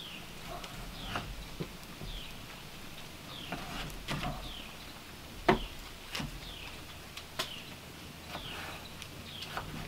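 A bird calling over and over, each call a short high chirp falling in pitch, about one and a half a second, with scattered sharp clicks and knocks among them.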